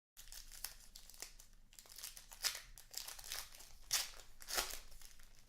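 Plastic wrapper of a baseball card pack crinkling and tearing as it is opened, with sharper crackles at about two and a half, four and four and a half seconds in.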